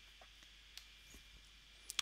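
Faint clicks of a computer mouse over quiet room hiss, the sharpest a quick pair near the end.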